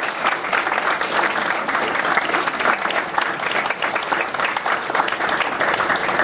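Audience applauding steadily, a roomful of hands clapping at the close of a speech.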